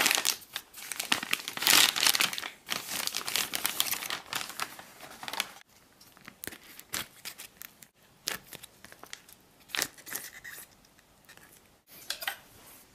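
Crinkling and rustling of MRE packaging as the hot entrée's foil retort pouch is pulled from its heater bag and torn open. The crinkling is loud for about the first five seconds, then thins to scattered, quieter crinkles and clicks.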